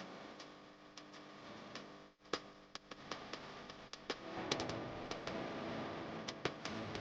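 Background music: held tones under a light ticking beat of sharp clicks, about two or three a second, growing fuller about four seconds in.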